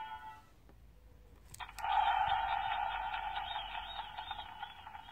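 A click from a button pressed on a children's sound book. Just after it, a sound effect plays from the book's small built-in speaker: a dense, noise-like sound that fades away over about three seconds.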